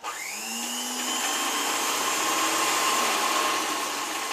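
Motor-driven sewing machine running as it stitches mosquito-net fabric. Its small electric motor starts abruptly and whirs up to a steady pitch within about half a second, then runs on steadily.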